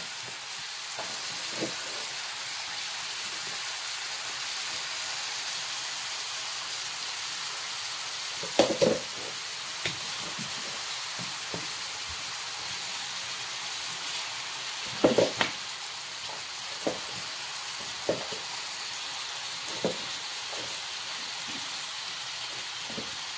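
Minced-meat balls sizzling in hot oil in a frying pan: a steady hiss, with a few brief louder sounds, the loudest about 9 and 15 seconds in.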